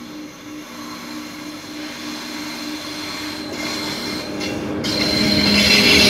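Electric-locomotive-hauled passenger train approaching on the track, growing steadily louder with a steady hum. About five seconds in, the locomotive draws level and a loud rush of wheel and machinery noise with a strong low drone takes over.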